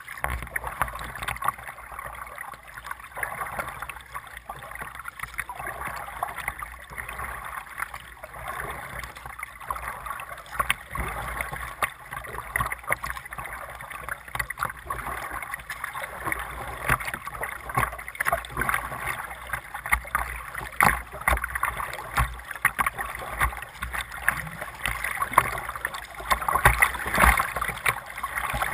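River water lapping and splashing against a kayak's hull close to the camera, with small splashes throughout. It grows louder and busier in the last several seconds as the kayak runs into choppy, rapid water.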